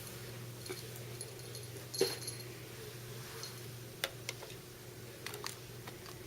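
Scattered faint clicks and taps, the loudest about two seconds in, with a few brief high chirps, over a steady low hum.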